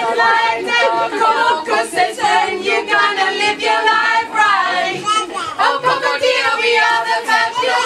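A group of voices singing a song together, several pitches overlapping.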